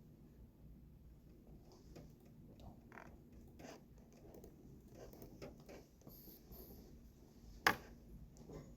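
Faint scattered clicks and taps over a low room hum, with one sharp, louder click about three-quarters of the way through.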